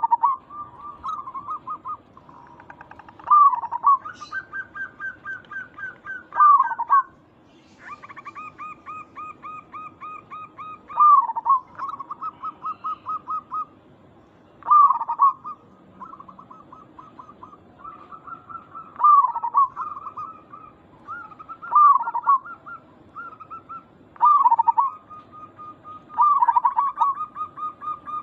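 Zebra doves (perkutut) cooing: runs of rapid, evenly spaced short coo notes, broken every three to four seconds by a louder coo that dips in pitch.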